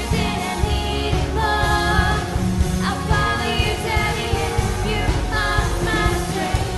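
Contemporary worship song: a band playing with a singing voice over a steady low bass.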